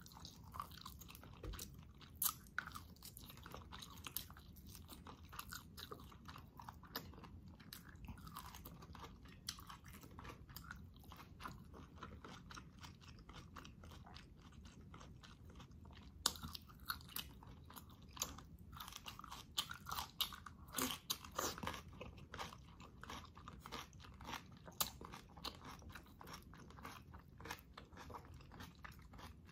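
Close-miked chewing and biting of boiled beef meat gnawed off rib and neck bones, with many small sharp clicks, busier after about the halfway point.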